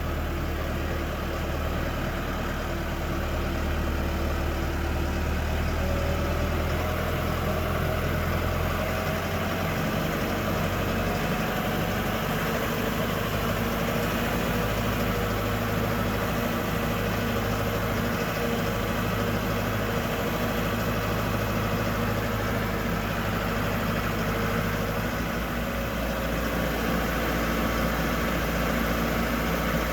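John Deere 310L EP backhoe loader's diesel engine running steadily, its pitch shifting upward about a third of the way in and settling back lower near the end as the engine speed changes.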